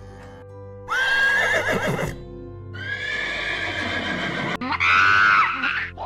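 Three long, high, wavering animal calls over steady background music: the first about a second in, the second around three seconds, the last and loudest near the end.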